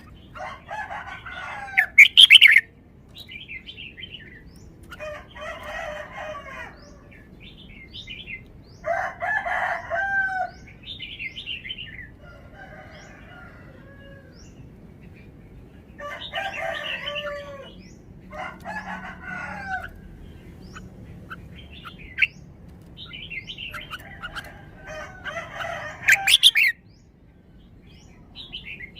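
Red-whiskered bulbul singing a series of short warbled phrases of rising and falling whistled notes, one every few seconds. A sharp, loud click or snap comes about two seconds in and again near the end.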